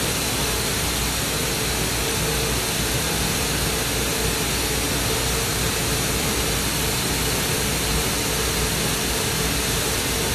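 Lampworking torch running a hard, 'ragey' flame with punch, giving a steady rushing hiss that does not change.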